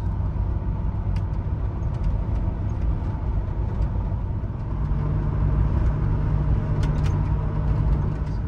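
Pickup truck on the move: steady engine and road rumble, with a low engine hum that comes in about halfway through and fades near the end.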